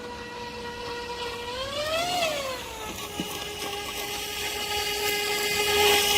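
RC airboat's motor and large 10-inch propeller running with a steady, high-pitched whine. About two seconds in, the pitch rises briefly, then falls back to a slightly lower steady note. A single short tick comes about three seconds in.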